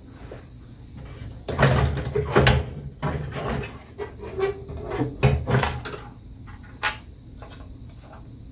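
Sheet-metal mounting plate inside a computed-radiography scanner being lifted off its frame: a series of metallic knocks, rattles and scrapes, with a last short knock near the end.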